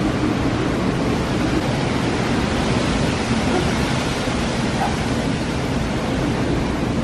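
Strong tropical-storm wind blowing hard, a loud, even rushing noise with deep rumble.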